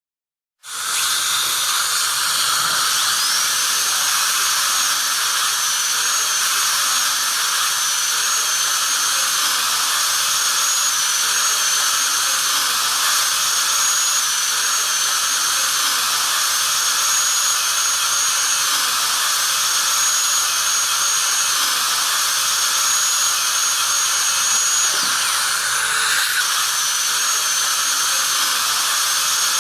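Dental drill running: a high-pitched whine over a steady hiss, starting about a second in, rising in pitch over the first few seconds and then holding steady.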